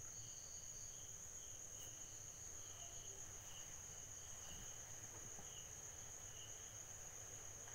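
Crickets chirping faintly: a steady high trill with a softer pulsing chirp beneath it, otherwise near silence.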